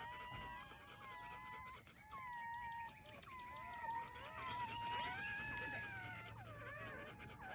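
Newborn Rottweiler puppies squeaking and whining, several at once, with thin high cries that overlap and bend in pitch.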